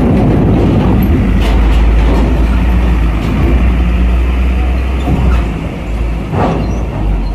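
Heavy truck's diesel engine running at low revs as it drives off a ferry, a loud deep rumble that eases off about five and a half seconds in.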